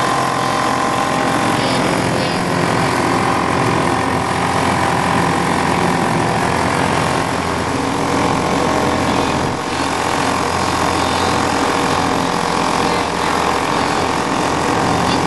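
Eska 4.5 hp two-stroke outboard motor running steadily at cruising speed, driving a small boat along a river.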